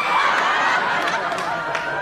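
Several women's voices clamoring over one another at once, mixed with studio audience laughter.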